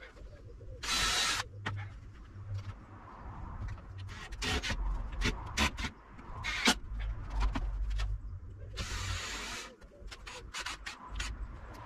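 Cordless drill-driver driving screws into a timber frame in short runs, the longest about a second in and near nine seconds, with knocks and clicks of handling the wood and the drill in between.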